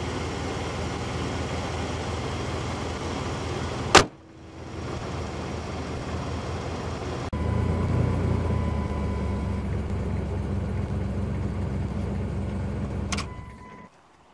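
1998 Dodge Dakota V8 idling, running again after its engine control module was replaced. About four seconds in the hood slams shut, sharp and loud. Later the idle is heard closer, a steady dashboard chime beeps for a couple of seconds, and near the end there is a click and a second short chime before the engine shuts off.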